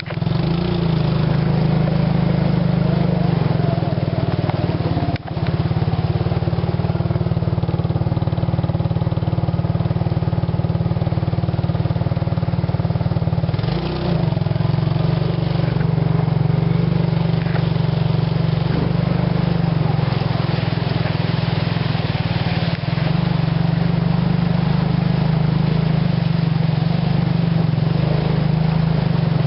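Suzuki King Quad 300 ATV's single-cylinder four-stroke engine running steadily as it rides along, with brief dips in the engine sound about five, fourteen and twenty-three seconds in.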